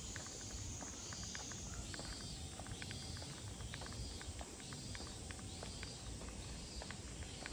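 Footsteps of a person walking on pavement, about two steps a second. Behind them is a steady high insect buzz that swells in slow, even pulses.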